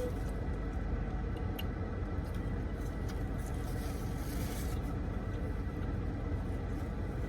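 Steady low hum of a car's air conditioning running inside the cabin, with a few faint clicks and a brief soft rustle about four seconds in.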